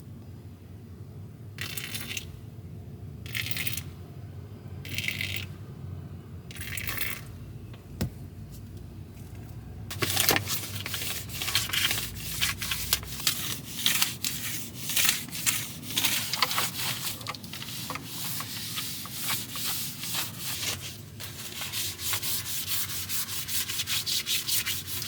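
Floor being scrubbed and wiped down by hand during a bleach clean-up: four short scrubbing bursts about a second and a half apart, then about ten seconds in, a long run of rapid back-and-forth rubbing strokes.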